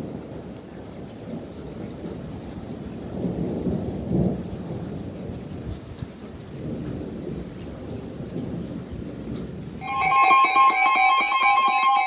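Thunder rolling through rain, with the loudest rumble about four seconds in. Near the end the storm sound gives way abruptly to loud electronic tones: the data and alert tones that open an Emergency Alert System weather warning.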